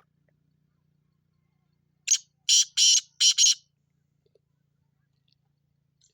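Black francolin (kala teetar) calling about two seconds in: a short note followed by three longer, rasping notes in quick succession, all over in about a second and a half.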